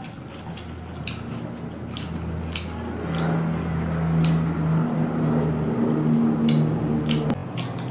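Wet chewing and lip-smacking of people eating rice and chicken by hand, with many sharp smacking clicks. Under it a steady low hum grows louder and stops suddenly near the end.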